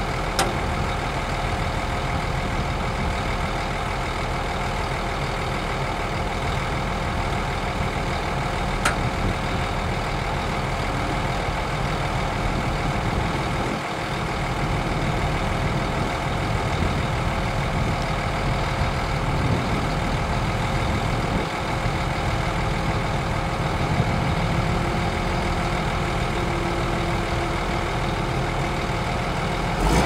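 Heavy diesel engines of a dump truck and a Shantui DH17 bulldozer running steadily while the truck's bed tips up to unload sand. A continuous drone with a steady hum-like tone, growing a little louder about halfway through.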